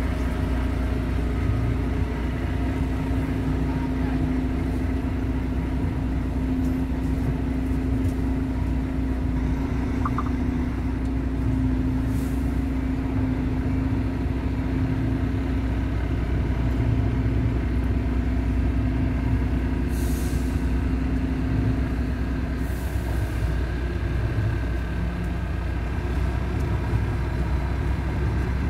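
Diesel truck engine running steadily while the truck creeps through a yard, heard from inside the cab. A few short hisses come about twelve seconds in and twice more near twenty seconds in.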